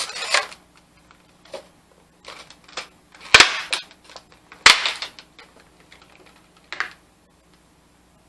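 Clear plastic packaging tray of a Funko Pop box crackling and snapping as the vinyl figure is worked free of it. It comes as a few sharp snaps, with two loud ones at about three and a half and four and a half seconds in.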